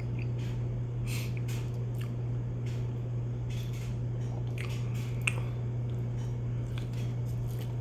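A person chewing a bite of pepper cheese, with soft wet mouth noises and one sharper click about five seconds in, over a steady low hum.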